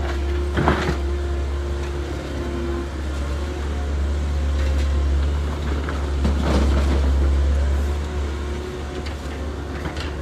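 Small electric motors and gearboxes of RC construction models whirring steadily under a constant low drone, with two short noisy swells, under a second in and again about six seconds in.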